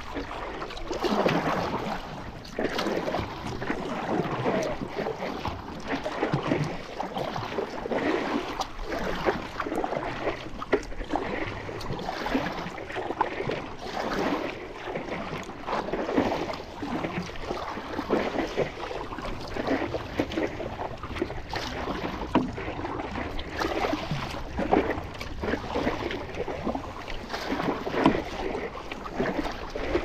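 A stand-up paddle's blade splashing into seawater stroke after stroke, with water lapping against the paddleboard's hull.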